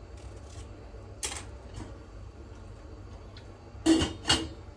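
Two sharp metallic clanks of a stainless steel pot lid being handled on the pot, less than half a second apart near the end, each ringing briefly; before them, faint small scrapes and a click of kitchen handling.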